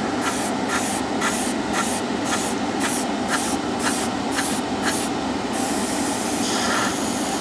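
Gravity-feed airbrush spraying out the last of the lacquer paint in its colour cup: a steady hiss of air and paint that pulses about three times a second, then evens out for the last couple of seconds.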